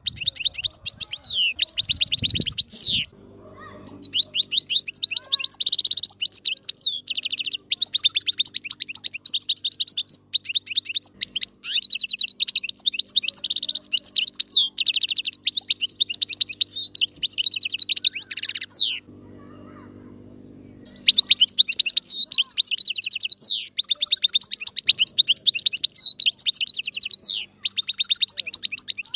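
European goldfinch singing: long runs of rapid, twittering and trilling notes. The song breaks off briefly about three seconds in and pauses for about two seconds two-thirds of the way through.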